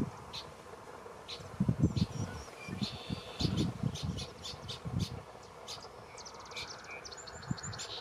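Birds calling with short high chips repeated through, and a fast, high trill near the end. Low gusts of wind buffet the microphone now and then.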